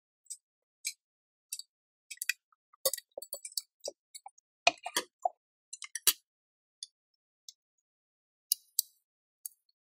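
Scattered clicks, rustles and light knocks from gloved hands handling wire connectors, sliding a battery pack into a steel box and setting a power inverter on a wooden table, with a few heavier knocks around the middle.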